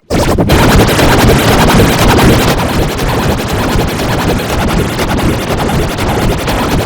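Loud, harsh digital noise from a heavily distorted audio effect, crackling throughout, with no clear tune. It cuts in abruptly at the start.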